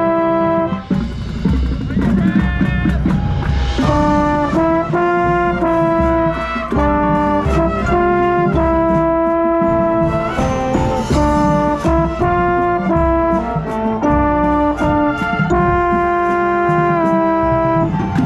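High school marching band playing: the brass section holds loud chords that change every second or two, with drum hits throughout.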